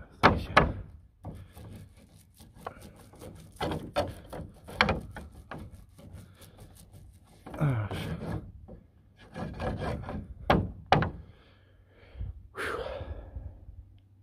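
Hand painting: a brush or roller rubbing and scraping in irregular strokes, with sharp knocks against the surface. A couple of short grunts come in between.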